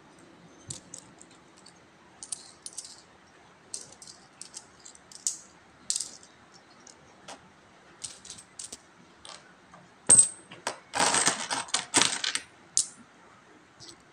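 Philippine peso coins clinking against each other as they are slid and picked up by hand from a pile on a cloth while being counted. There are scattered single clinks, then a dense, louder run of clinking about ten seconds in.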